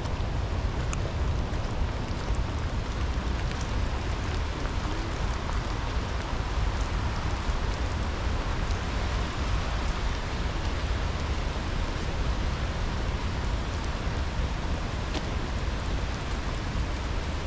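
Steady, unbroken rush of a swollen, fast-flowing river running through rapids.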